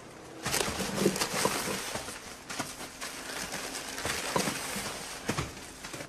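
Clear plastic bags filled with salt rustling and crinkling as they are handled, with many small crackles; it starts about half a second in.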